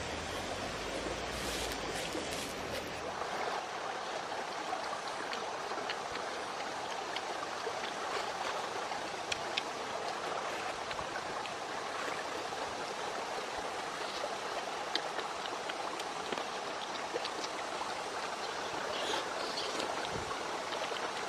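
Steady rush of flowing stream water, with scattered small clicks and mouth sounds from oysters being eaten off the shell.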